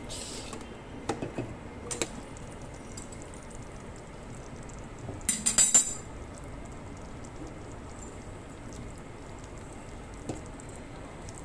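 Clinking and rattling of a steel plate used as a lid as it is lifted off a steel kadhai and handled. There are a few separate clinks in the first two seconds, and a quick jangling burst about five and a half seconds in is the loudest.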